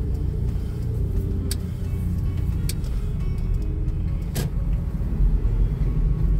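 Low, steady rumble of a car's engine and tyres heard from inside the cabin while driving, with music playing over it. A few sharp clicks come through, the clearest about four and a half seconds in.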